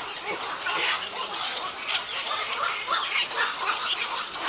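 A breeding colony of egrets calling, many birds at once, a steady chatter of short overlapping squawks.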